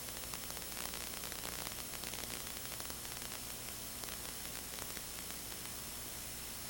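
Steady static hiss with a low hum and faint high whistle tones, broken by light crackles during the first five seconds, as heard on an analog FPV video receiver's audio channel.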